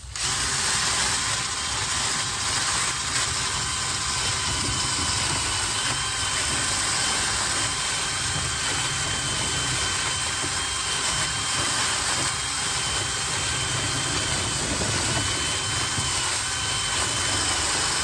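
Cordless drill running steadily, spinning a dryer-vent cleaning brush on flexible rods inside a lint-clogged dryer exhaust duct, with a constant high whine. The duct is packed with lint and gives zero airflow.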